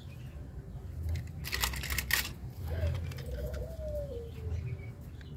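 Two short rustling clicks about one and a half and two seconds in, from a hand handling small plastic toy cars, over a steady low rumble. They are followed by a faint, low bird call lasting about two seconds, rising a little and then falling.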